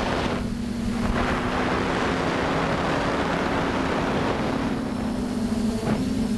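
TBS Discovery quadcopter's brushless motors and propellers droning at a steady pitch, heard from on board, with wind rushing over the microphone.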